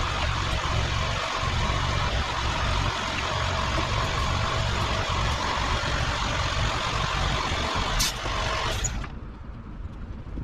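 Heavy truck's diesel engine running steadily with a faint whine. It stops abruptly about nine seconds in, just after two sharp clicks.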